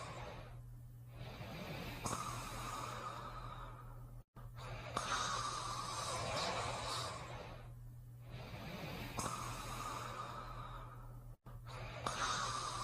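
Slow, heavy breathing of a sleeper, one noisy breath about every three to four seconds with a short quiet gap between.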